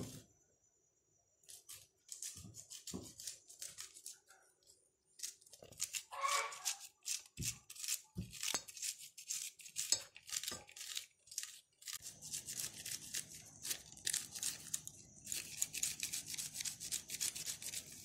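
Corn kernels being rubbed and scraped off the cob by hand into a steel pot, a run of short crunchy scraping strokes. They are sparse at first and quicken into fast, continuous rubbing over the last few seconds.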